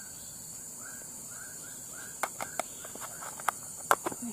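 Steady high insect buzz, with a run of short repeated chirps from a small animal over it. From about two seconds in come several sharp clicks and taps of a plastic food container and bag being handled.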